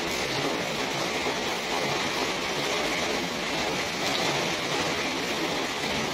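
Steady rain falling, a dense even patter of drops that holds without a break.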